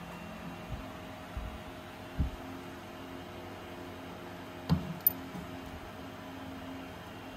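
Steady hum with a few soft low thumps, then a sharp metallic knock and, a moment later, a short high click as the quill drives the punch down onto the brass oil metering unit to press out its internals.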